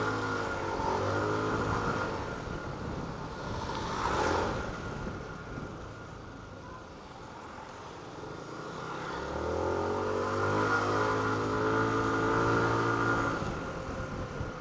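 Rusi Adventure X 150 scooter's 150cc liquid-cooled four-valve engine heard from the rider's seat. Its revs rise under throttle at the start, ease off through the middle, then climb again in a second pull from about nine seconds in before easing near the end. There is a short burst of noise about four seconds in.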